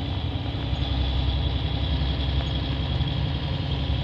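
Volvo D13 diesel engine of a tri-axle dump truck running steadily with a continuous low drone.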